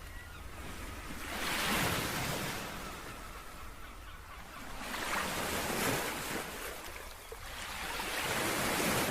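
Ocean waves washing in: a hiss of surf that swells and fades three times, about every three to four seconds.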